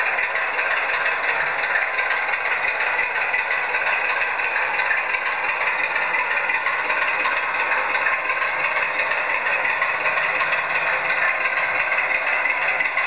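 LokSound sound decoder in a Bachmann 00 gauge Class 25 diesel model locomotive playing its sampled Sulzer diesel engine sound steadily through the model's small speaker as the model runs along the track. The sound is thin and tinny, with little bass.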